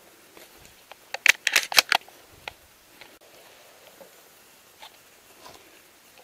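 Close handling noise as the hunter shifts in a leafy hide: a quick cluster of sharp crackles and rustles about a second in, lasting under a second, then a few faint ticks.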